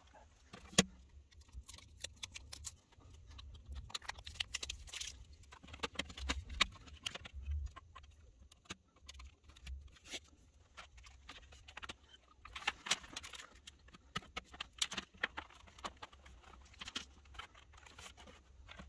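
Scattered clicks, taps and knocks of an Acorn Electron's circuit board and plastic case being handled and put back together, with one sharper click about a second in.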